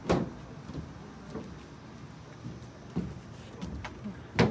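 A few scattered knocks and thumps, the loudest just after the start and again near the end, the last as a glass shop door is pulled open by its metal bar handle.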